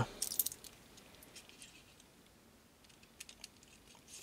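Faint small clicks and light rattles of a soldering iron's threaded tip collar being turned by hand to change the tip. A cluster of clicks comes right at the start, with a few more about three seconds in and near the end.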